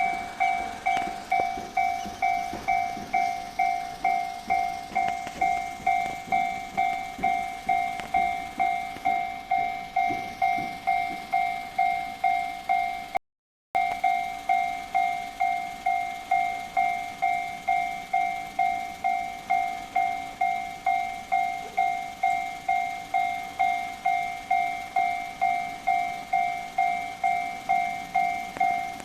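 Japanese level crossing warning bell ringing steadily, about three strikes every two seconds, with a train rumbling and clattering past in the first ten seconds or so. The sound cuts out completely for a moment about 13 seconds in.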